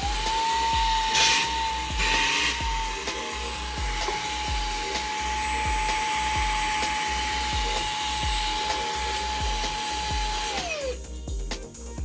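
Xiaomi Mi Vacuum Cleaner Mini handheld vacuum running: its motor spins up to a steady high whine with rushing air, then winds down near the end as it is switched off. Two brief louder rushes of air come in the first few seconds.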